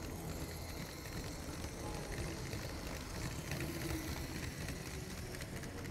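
LEGO model Westbahn KISS double-deck train running past on plastic LEGO track: a steady rolling rumble of its motor and wheels.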